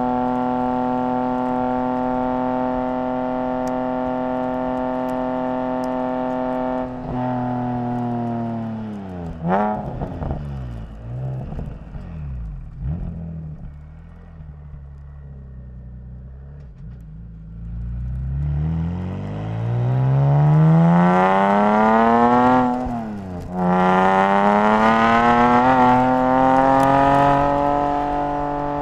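Nissan 370Z's 3.7-litre V6 engine. It holds steady revs, then the revs fall away about seven seconds in with a couple of quick throttle blips and settle low and quieter. It then accelerates hard, the pitch climbing, breaks off briefly about twenty-three seconds in as at a gear change, climbs again, and levels off at steady revs near the end.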